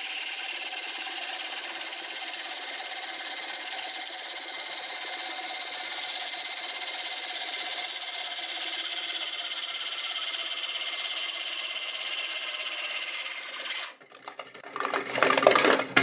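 Robert Sorby parting blade cutting an angled ring groove into a wood board blank spinning on a lathe at about 500 RPM: a steady scraping hiss of the cut. About fourteen seconds in it stops abruptly and a few loud knocks follow.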